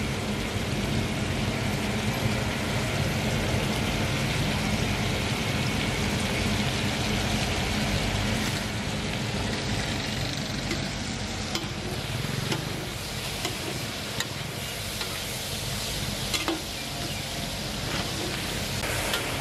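Chunks of beef liver sizzling in oil on a large flat tawa griddle, over a low steady rumble. From about two thirds of the way in, a metal spatula scrapes and clicks against the griddle as the liver is stirred.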